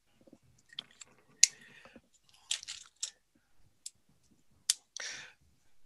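Handling noise of a marker and paper: several sharp clicks and a few short scratchy rustles.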